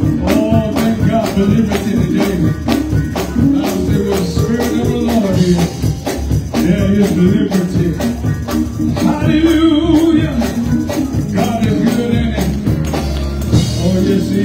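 Live gospel praise music: singing over keyboard and drums, with a quick, steady beat of percussion hits.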